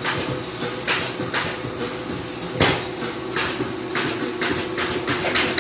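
Irregular knocks, clatters and scrapes of hard objects being handled, over a steady faint hum.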